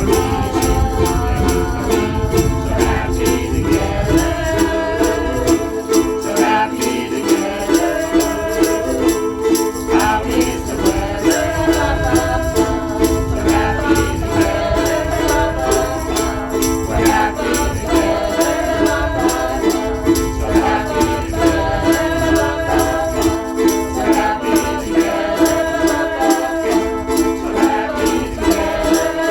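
A group of ukuleles strummed together in a steady rhythm, with voices singing along.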